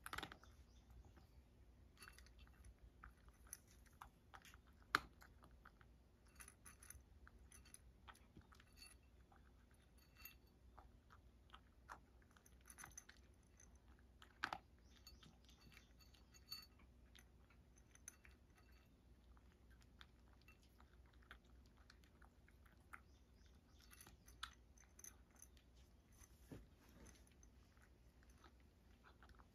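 Cat eating dry kibble from a ceramic bowl: faint, irregular crunching and chewing with scattered clicks, the sharpest about five seconds in and again near the middle.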